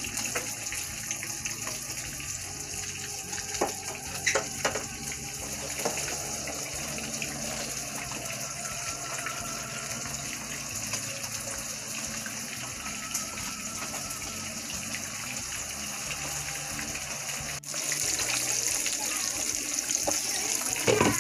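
Battered shrimp deep-frying in hot oil: a steady, loud sizzle, with a few short knocks about four seconds in. After a break near the end the sizzle comes back louder.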